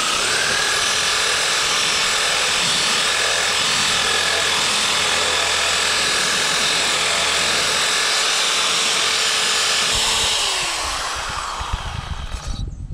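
Cordless drill with a wire wheel spinning against the rusty steel of a lawn mower deck, scouring off rust: a steady motor whine over the wire's scratching. About ten seconds in the drill winds down and stops, followed by a few low thumps.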